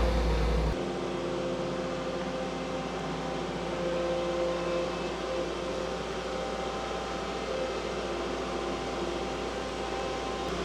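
Engine running steadily, a constant hum under a hiss, with an abrupt change in its sound shortly after the start.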